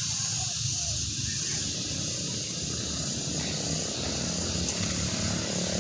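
Cicadas (turaes) in the trees, a steady high-pitched drone with no break, over a continuous low rumble.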